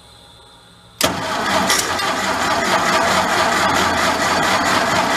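Carbureted four-cylinder engine of an old portable air compressor cranking and starting with its choke partly opened. The sound comes in suddenly about a second in and runs on loudly and steadily.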